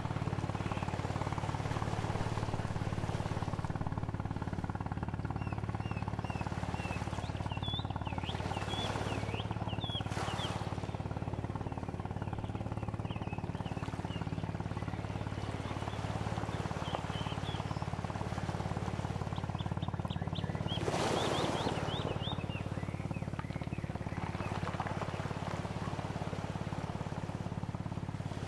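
Nature ambience: small birds chirping in many short, quick calls over a steady low background rumble, with a couple of brief swells of rushing noise, the loudest about three-quarters of the way through.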